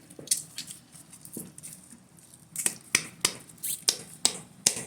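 A 4-ounce plastic bottle of Elmer's glue being squeezed empty: an irregular string of sharp pops and squelches as air and glue sputter from the nozzle, coming about three a second in the second half.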